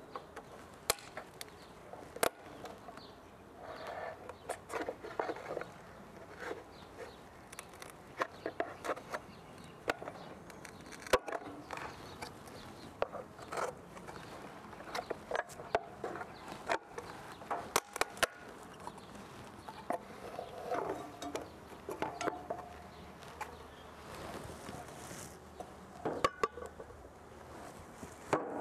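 Honeybees buzzing in and around a bee package as it is handled, with scattered sharp clicks and knocks of handling throughout.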